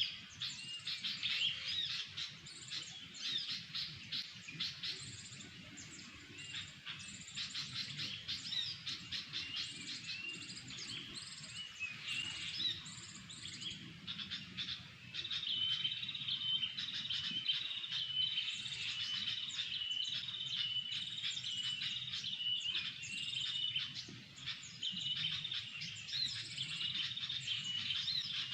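Birds singing and chirping continuously in a dense, overlapping chorus of quick high notes; from about halfway through, one bird repeats a short note over and over in a steady run.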